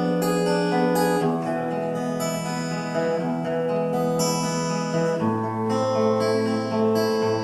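Instrumental introduction to a song: held chords that change about a second in and again about five seconds in, with no singing yet.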